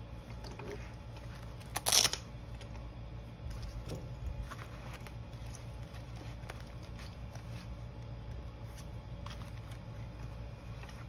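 A fabric zippered pouch being handled: one quick, loud zipper pull about two seconds in, then light rustles and small clicks as items are tucked inside.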